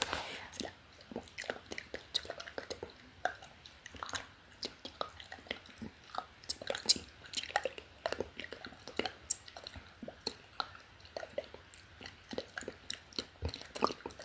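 Close-miked ASMR mouth sounds: irregular wet clicks and smacks of lips and tongue, several a second, from inaudible whispering.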